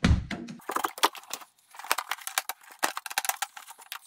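A workshop dust extractor being opened to empty it: a heavy thump at the start, then a quick run of plastic clicks, clacks and rattles as the stacked cases and the lid are handled.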